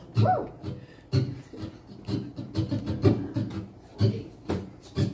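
Acoustic guitar strummed in a steady rhythm, with a brief rising note near the start.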